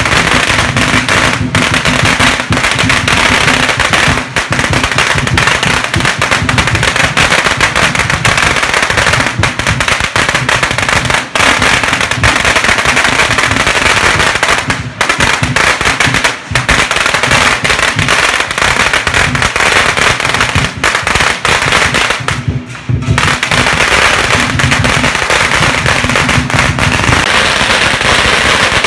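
Strings of firecrackers going off in a dense, continuous rattle of rapid bangs, loud throughout, with a few brief lulls.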